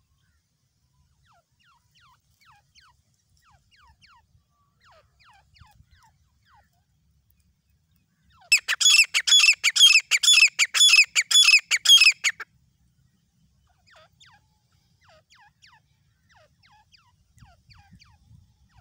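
Grey francolin calling: a loud run of rapid, harsh repeated notes, about three or four a second, lasting some four seconds midway, with fainter calls before and after.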